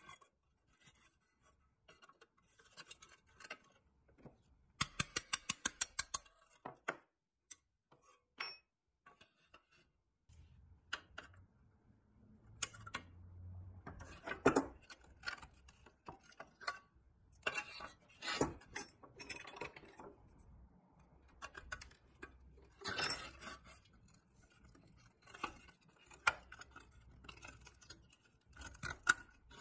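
Pressed-steel toy truck body and its metal windshield frame being handled and worked loose: scattered light metal clicks, taps and scrapes. About five seconds in comes a quick run of about a dozen clicks.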